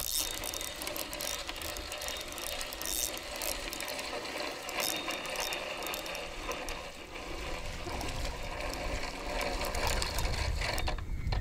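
Fishing reel being cranked, its gears and anti-reverse pawl making a fast, even clicking as line is wound in.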